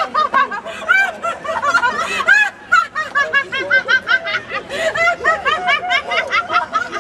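Several people laughing hard and without a break, in quick repeated 'ha-ha' pulses, with a brief pause about two and a half seconds in.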